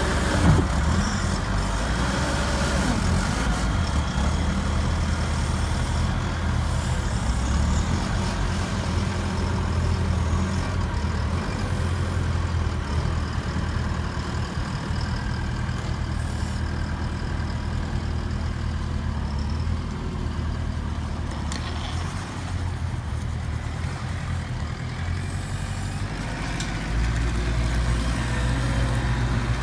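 JCB 300 skid steer's diesel engine running steadily, its note shifting as the load changes while it works. Near the end it drops to a deeper, louder note.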